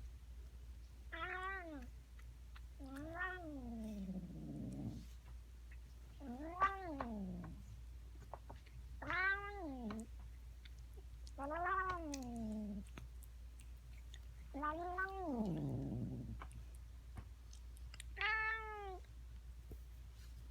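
Domestic cat meowing, seven drawn-out calls a few seconds apart, each rising then falling in pitch; some trail off into a lower, drawn-down end.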